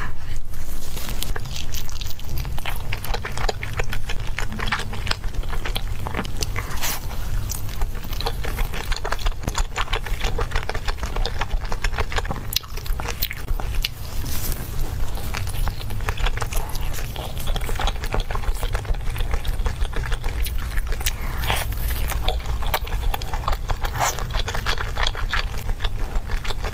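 A person biting and chewing grilled skewered food, with many short, sharp crunchy clicks all through, over a steady low rumble.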